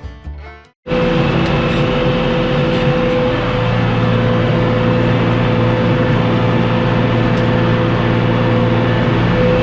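Farm tractor running steadily under load while bush hogging, with a rotary cutter behind it, heard from inside the cab: an even engine drone with a steady whine over it. It starts suddenly about a second in, after the last notes of some music.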